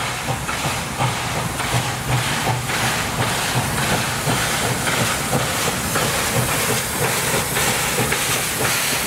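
NSW 36 class 4-6-0 steam locomotive 3642 working a passenger train as it approaches and passes close by, its exhaust beating in a steady rhythm over the hiss of steam, growing slightly louder as it nears.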